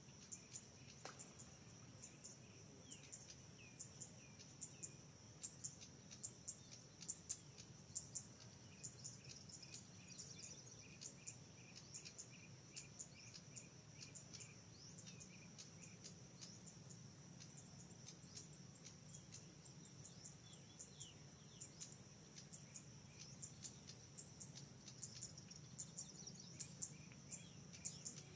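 Faint insect chorus: a high, steady trilling buzz that comes in pulsing runs of a few seconds, with many short high chirps scattered over it and a faint low hum underneath.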